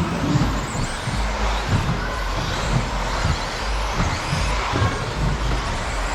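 A pack of electric RC racing buggies with 17.5-turn brushless motors running on the track: a steady mix of motor whine and tyre noise with low thumps.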